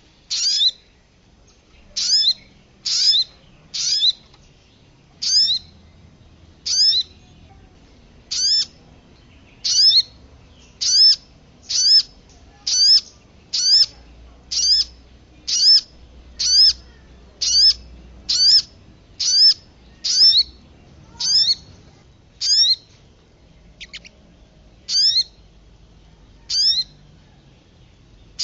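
Bird lure recording of sogon calls combined with kemade calls: a short, sharp, high-pitched call repeated about once a second at a steady pace, each one a quick cluster of falling notes.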